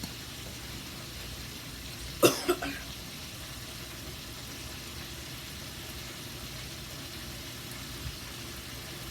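A quick cluster of about three crunches about two seconds in: a bite into a crispy battered fried chicken strip. A steady low hum carries on underneath.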